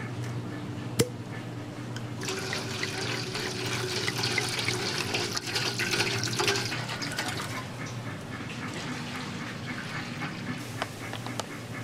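Liquid poured in a stream into a stainless-steel bowl of dark sauce, splashing and fizzing loudest over the first half and easing off later. A single sharp click about a second in, as a bottle cap is twisted open.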